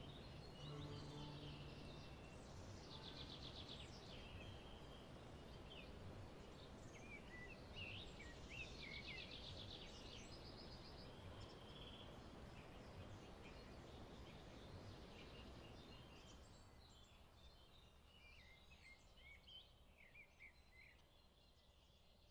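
Faint outdoor ambience of small birds chirping, with a few rapid trills, over a soft steady background noise. It fades away over the last several seconds.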